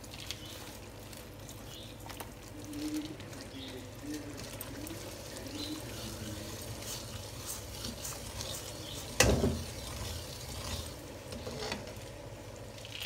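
Semolina halwa simmering in a metal pan as a steel ladle stirs it, with one sharp clack of the ladle against the pan about nine seconds in.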